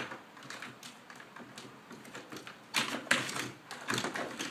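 A Boxer dog scrambling to climb out of a garden: irregular clattering taps and scrapes of claws and paws, with a loud cluster about three seconds in and more near the end.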